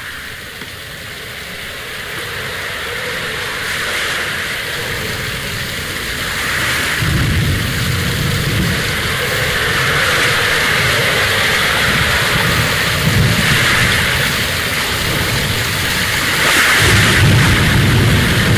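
Heavy rain with rolling thunder, the storm growing louder; deep rumbles swell about seven seconds in, again around ten seconds, and near the end.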